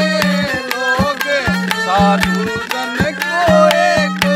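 Haryanvi folk bhajan music between sung lines: a clay pot (ghara) drummed in a quick, even rhythm under a gliding melody and a low droning note that comes and goes.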